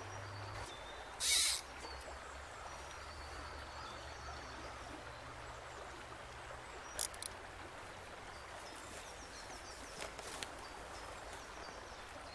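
River water running steadily over a shallow riffle, with faint small-bird chirps. A brief loud hiss comes about a second in, and there are a few short clicks later on.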